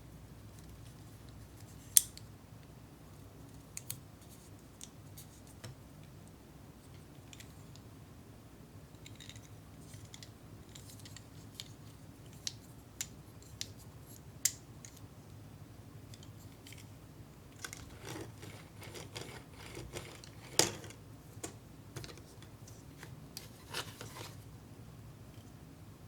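Small, crisp clicks and snips from the candy kit's pieces and packets being handled, scattered and irregular, one sharp click about two seconds in. A busier run of snipping, rustling clicks comes in the last third.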